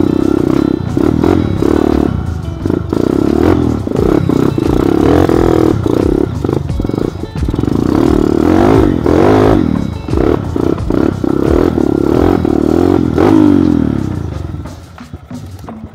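Trail motorcycle engine revving up and down over and over while riding rough off-road trail, with the bike clattering over bumps. The sound fades out in the last two seconds.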